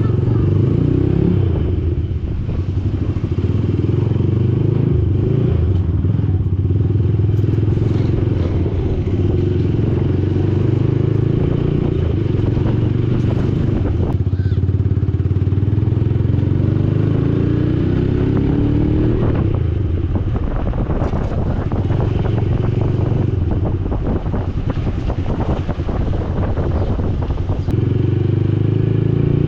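Yamaha YBR 125's single-cylinder engine running through an aftermarket Akrapovic slip-on exhaust with its baffle (dB killer) removed, a loud, bassy note while riding. The engine note rises and falls with the throttle, with a clear rev climbing in pitch about two-thirds of the way through.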